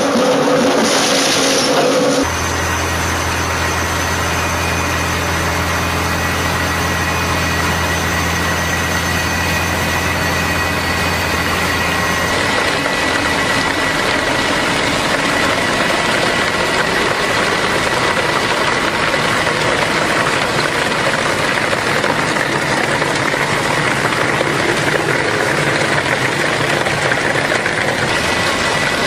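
Industrial crusher machine running: a steady low motor hum, which gives way about 12 seconds in to a dense, even grinding noise with a thin steady whine.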